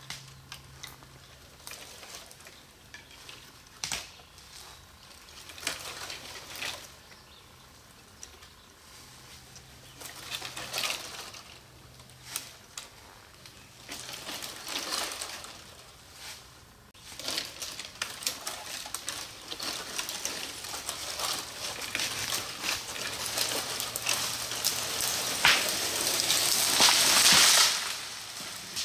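A hung-up cedar tree pushed over by hand: scattered rustles and small cracks of branches as it is shifted, then from just past halfway a long, swelling swish of boughs with many small snaps as the tree slides and topples through the surrounding trees, cutting off abruptly near the end.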